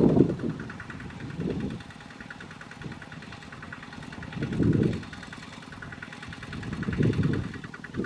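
Kubota RT140 two-wheel tractor's single-cylinder diesel engine running steadily as it pulls a trailer loaded with straw bales. Louder swells of low noise rise and fall every couple of seconds over the engine.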